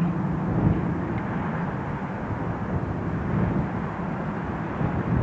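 Diesel locomotives running in a yard, a steady low engine rumble.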